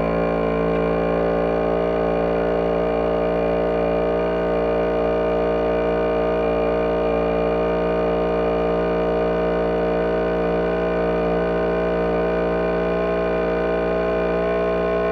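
Background music: one sustained synthesizer chord held steady, with no beat.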